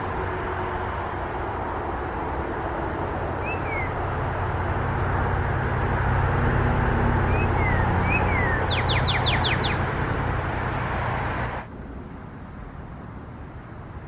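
Northern cardinal singing over a steady rumble of road traffic: a few single slurred whistles, then a quick run of about seven sharp downslurred notes about nine seconds in. The traffic rumble is the loudest sound; it swells in the middle and cuts off suddenly near the end.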